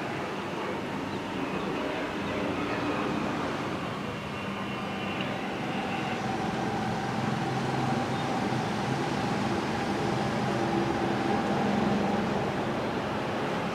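Train approaching a level crossing: a steady rumble that grows slightly louder, with a held whine coming in about halfway through.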